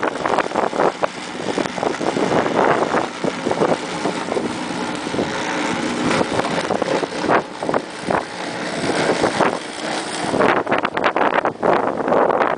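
Strong blizzard wind gusting and buffeting the microphone, a loud rushing noise that surges and drops irregularly.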